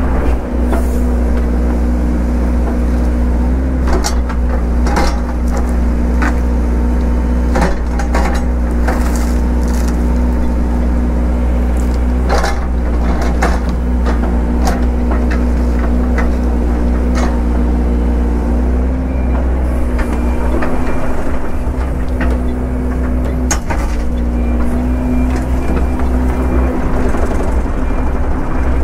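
Excavator's diesel engine running steadily under work, with wood cracking and snapping many times as trees and brush are pushed over and broken.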